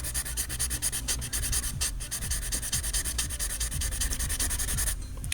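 Sandpaper rubbed by hand in quick back-and-forth strokes, several a second, over the clear coat of a carbon fiber crank arm, taking off the scuffed clear coat. The scratching stops about five seconds in.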